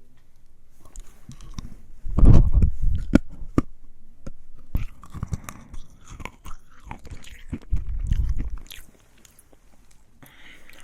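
Crunching and chewing of hard, compressed Fizzers tablet sweets close to the microphone: a run of sharp crunches, loudest about two seconds in and again near the end.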